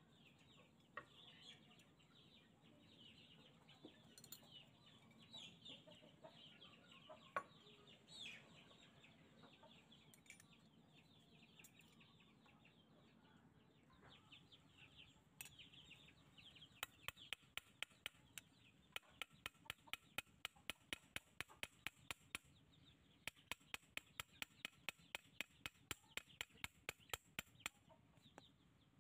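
Restored old shears with wire handles being snipped open and shut, heard as two runs of sharp, even clicks about three a second over the second half. Faint bird calls chirp behind it.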